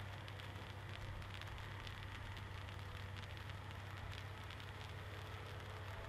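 Dominator PFS054 outdoor waterfall firework, a row of fountains pouring sparks downward, giving a steady hiss with fine crackling, over a steady low hum.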